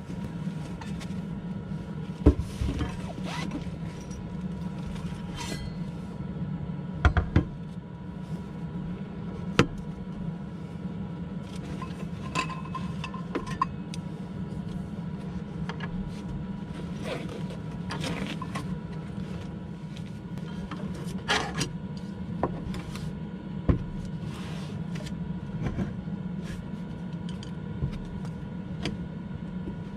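A steady low hum, with scattered sharp clicks and knocks of cookware and utensils being handled.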